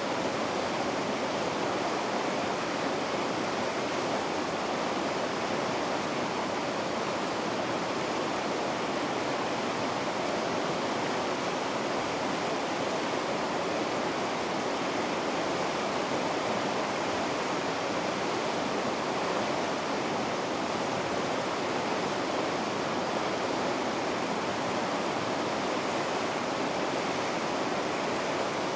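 Rapids on the Ounasjoki river rushing steadily, an even roar of white water with no break or change.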